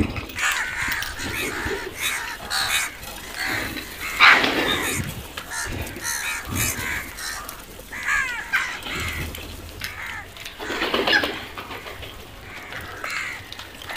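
A flock of house crows cawing on and off, harsh calls overlapping one another, the loudest about four seconds in and again around eleven seconds.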